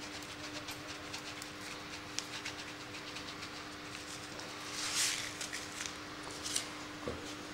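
Crushed stone chips poured from a small plastic zip bag, the grains landing on a wooden bowl in many small clicks, with a louder rustling burst about five seconds in. A steady low hum runs underneath.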